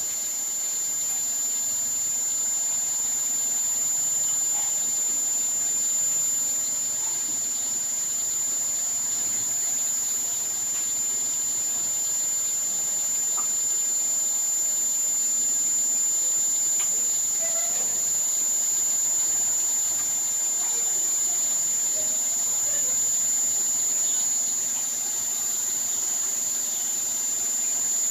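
A steady high-pitched whine that holds one pitch without a break, with a few faint short sounds underneath.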